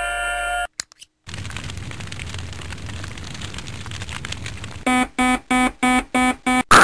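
A run of separate sound-effect samples played one after another: a steady multi-tone sound that cuts off less than a second in, a couple of clicks, several seconds of rough noise, then an electronic alarm beeping about four times a second near the end.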